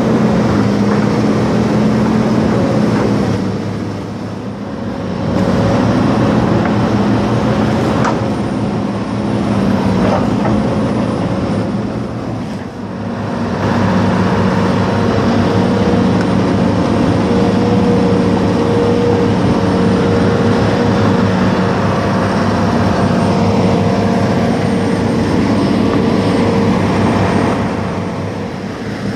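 Amphibious excavator's diesel engine running steadily, heard from the operator's cab. It eases off briefly three times: about four seconds in, near the middle and near the end.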